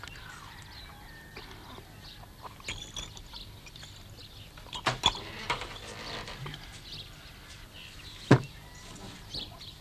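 Quiet film-scene ambience: scattered small rustles, clicks and knocks over a faint background, with one sharp knock about eight seconds in.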